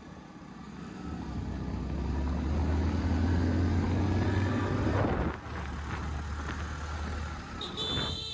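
Motorcycle riding along a mountain road: engine and road noise with wind rumbling on the microphone, strongest in the middle and easing off after about five seconds. A brief high-pitched tone near the end.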